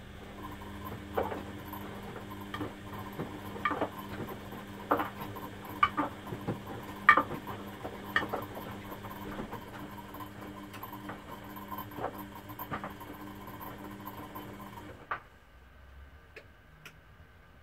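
Two Beko front-loading washing machines tumbling laundry on a delicate wash: a steady motor hum with irregular clinks and knocks as the load turns and drops in the drums. About 15 seconds in, the hum stops after one last knock and the drums pause.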